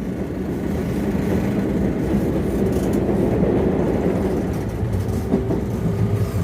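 Osaka Loop Line commuter train running with a steady, loud low rumble; a steady tone joins it about five seconds in.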